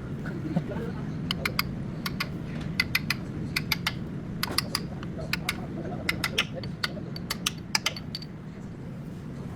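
Sharp metallic clicks and taps of hand tools at work, coming irregularly in pairs and small clusters, over a steady low hum.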